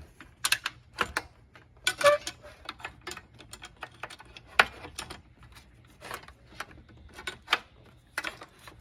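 Irregular sharp clicks and taps of metal mounting hardware being handled as a solar panel post mount bracket is fitted with its screws, the loudest click about four and a half seconds in.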